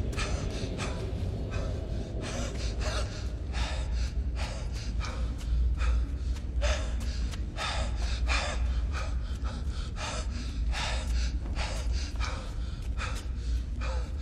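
A man breathing hard, panting in quick gasps about twice a second, over a steady low rumble.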